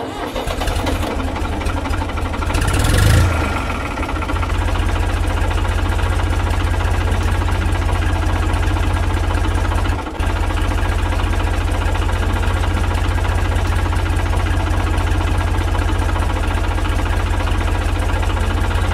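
Tractor engine chugging steadily at a fast even beat, with a louder, hissier swell about three seconds in. It drops out for an instant about halfway through and then carries on unchanged.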